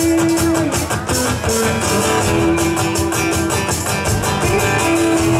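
Live rock band playing through a PA: strummed acoustic and electric guitars, bass guitar and a drum kit keeping a steady beat, with long held notes over the chords.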